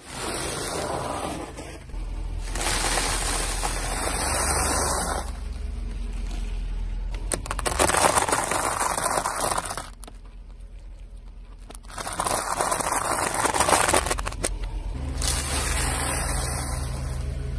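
Car tyres rolling over objects and crushing them, with crackling and scraping over the low sound of the car's engine running. The sound changes abruptly several times and drops quieter for a couple of seconds in the middle.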